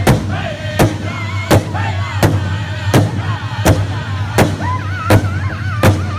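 Powwow drum group singing around a big drum: an even drumbeat of about one stroke every three-quarters of a second, with high, wavering voices above it that grow stronger in the second half.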